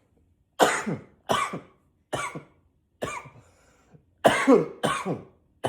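A man coughing in a repeated fit: about seven hard coughs, each harsh at the start and sliding down in pitch, with a short pause after the fourth before three more.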